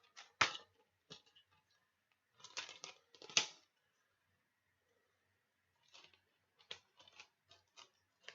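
Handling of a plastic DVD case: scattered clicks and short rustles, the loudest about half a second in and around three seconds in, with a few lighter clicks near the end.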